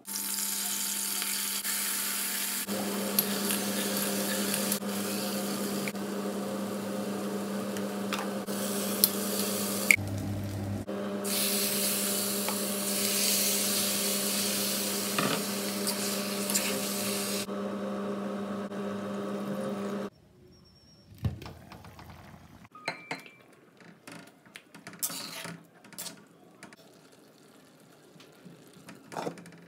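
A small motor hums steadily with a hiss for about twenty seconds, breaking off abruptly at edit cuts. After that come scattered scrapes and clinks of a spoon stirring mutton gravy in an iron kadai.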